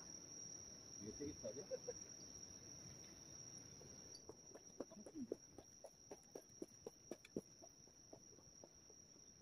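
Near silence with a faint, steady, high-pitched trill throughout. A run of soft ticks comes in the middle seconds.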